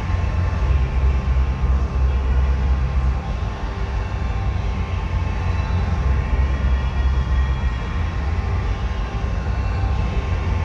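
Steady low rumble of a paint spray booth's ventilation fans, heard through the booth's glass door, with a few faint steady hum tones above it.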